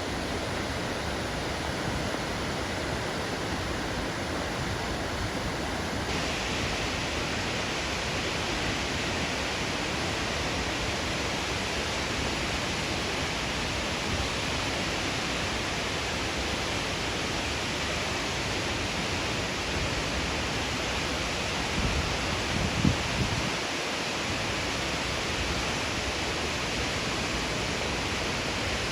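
Waterfall: a steady rush of falling water, with more hiss in the upper range from about six seconds in. A few brief low bumps come about three-quarters of the way through.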